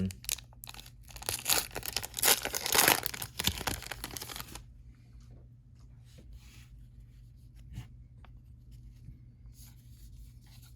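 A baseball card pack wrapper being torn open and crinkled by hand for about four and a half seconds, then faint rustling as the cards are handled.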